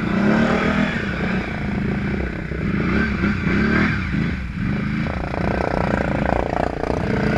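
Snorkeled ATV engine revving up and down while pushing through deep mud, its pitch dipping about four seconds in and climbing again near the end, with mud and water splashing.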